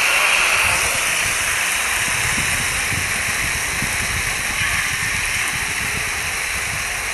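Crowd applause and cheering from a live concert recording, a loud steady rushing noise that slowly dies down.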